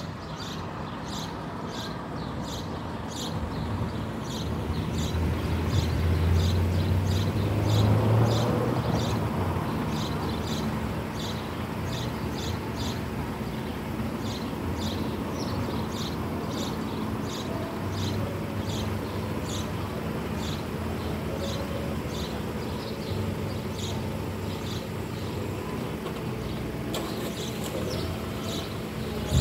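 Level-crossing warning bell ringing in an even rhythm of about two high strokes a second, with a road vehicle's low engine rumble that swells and fades in the first third.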